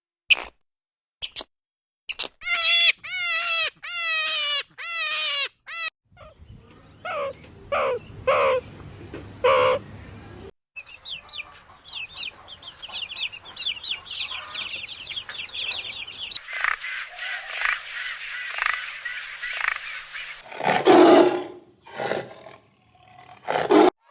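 A run of different animal and bird calls, one short clip after another: a string of wavering repeated calls, then lower rising calls, then fast high-pitched twittering, and louder harsh calls near the end.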